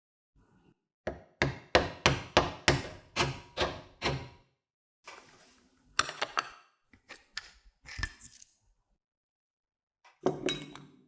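Hammer blows, a quick run of about eight at roughly two or three a second, followed by a few scattered knocks and a short scraping noise.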